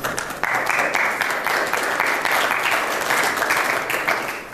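Audience applauding, a dense patter of clapping that fades away near the end.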